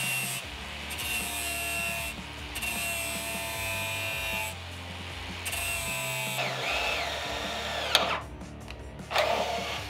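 Angle grinder with a grinding disc grinding snapped bolt stubs flush on a steel chassis rail: three runs of a steady high-pitched whine of about two seconds each, with short pauses between. After these comes a rougher stretch whose pitch dips, then a sharp click a couple of seconds before the end.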